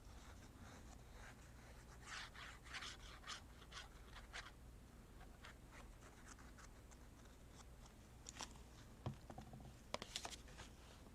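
Faint scratching and rubbing of paper being handled as a paper pocket is glued down, in short clusters of strokes about two seconds in and again near the end, with a few light taps.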